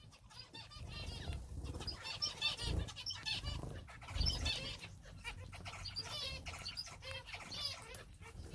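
A mix of small cage finches and canaries chirping and calling busily, with short, repeated high notes and soft wing flutters.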